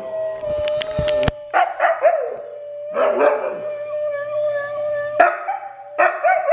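Dogs howling: long howls held on one steady pitch, broken up by shorter wavering howls, with a few sharp knocks about a second in.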